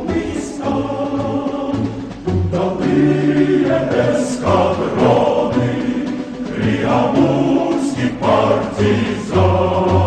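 Music: a choir singing with instrumental accompaniment, over a bass line that recurs every second or so.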